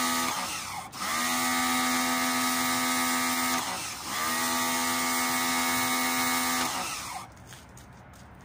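Black & Decker BXPW1300 electric pressure washer running with a steady high hum. It dips and comes back up twice, then winds down and stops about seven seconds in.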